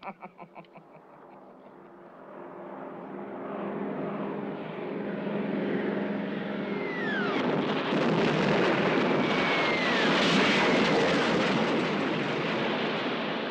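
Two propeller warplanes' engines growing louder as they come in, with falling whistles, then a loud blast and rumble as their bombs hit a steel truss bridge.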